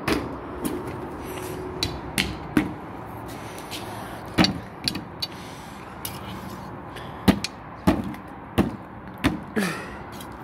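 A dozen or so sharp knocks and taps at irregular intervals, some followed by a short hollow ring.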